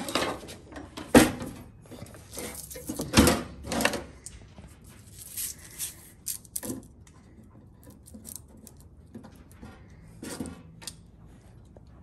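Handling noises as butyl sealing tape is pressed along the edge of a sheet-metal heater housing and pulled from the roll. Two sharp knocks come about one and three seconds in, followed by quieter scattered rustles and clicks.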